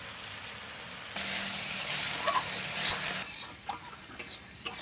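Ground spice paste sizzling as it fries in mustard oil in a pan, stirred with a spatula while it is cooked down until the oil separates. The sizzle grows sharply louder about a second in, eases off after about two seconds, and then gives way to a few scrapes and light knocks of the spatula.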